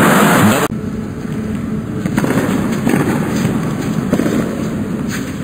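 Crowd applause and cheering that cuts off abruptly less than a second in. Then a tennis rally: the ball struck by rackets with a sharp pop about once a second over low crowd noise.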